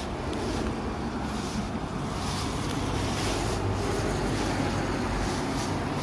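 Steady street traffic rumble, with footsteps scuffing and rustling through dry fallen ginkgo leaves on pavement at irregular intervals.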